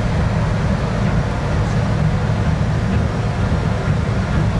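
Steady low rumble on the deck of a car ferry under way: the ship's engine drone, heard with no break.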